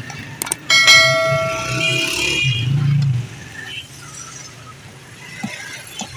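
A short click, then a ringing bell chime, the sound effect of a YouTube subscribe-button animation. It is loudest about a second in and fades out by about three seconds, leaving a quieter low background noise.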